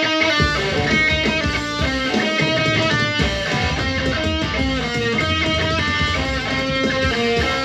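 Jackson electric guitar being played, a run of single notes stepping up and down in pitch.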